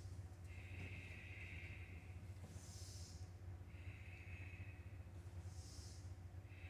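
A person breathing slowly and with control, probably the karate practitioner, in and out in an even rhythm of about one breath every three seconds. Each cycle has a short, sharp, hissy draw followed by a longer, softer breath. A steady low hum runs underneath.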